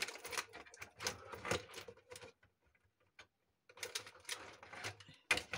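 Irregular clicks and crackles of cut plastic bottle pieces being handled and fastened with twisted wire, stopping for about a second midway.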